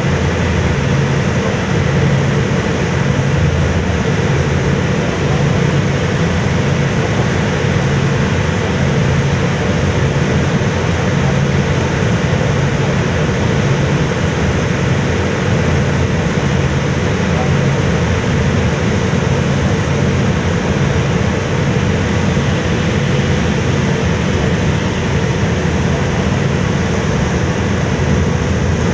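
Car ferry's diesel engines running steadily under way: a constant low drone with the rush of the churning propeller wake, unchanging throughout.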